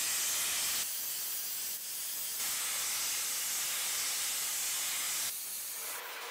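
Steady hiss of compressed air from pneumatic chain hoists running under load as they lift a ship engine's crankshaft. The hiss steps down in level about a second in and shifts again a couple of times.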